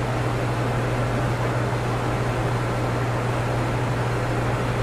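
Steady machinery hum: a constant low drone under a broad even hiss, with no distinct events.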